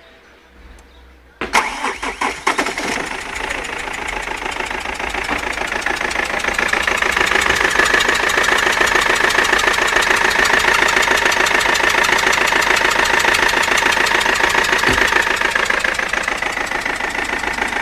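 BMW 320td diesel engine starting, about a second and a half in, then idling with a fast even clatter. A high whine builds over the next several seconds and eases near the end: the strange noise the owner wants identified.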